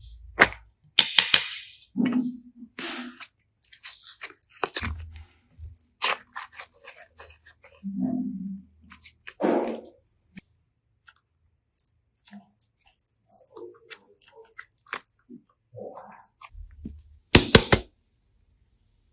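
Hands working slime and clay and handling small plastic toys: scattered clicks, crackles and short squishy crunches at irregular intervals, with a sharp cluster of clicks near the end.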